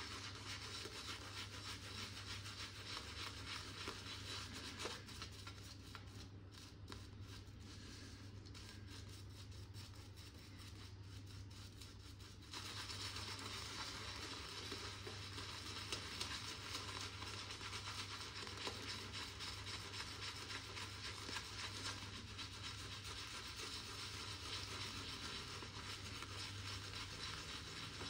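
Synthetic-bristle shaving brush (Boti N3C) working shaving-soap lather directly on the face: a faint, steady wet rubbing and brushing, quieter for several seconds in the middle.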